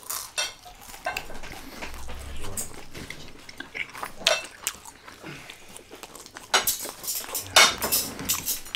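A person biting into and chewing a piece of grilled peri peri chicken close to the microphone, with short, irregular clicks and cutlery clinking on plates, busiest about four seconds in and again near the end.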